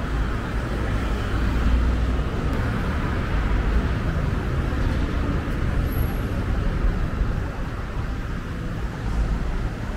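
Steady city road traffic: a constant low rumble of passing cars and buses.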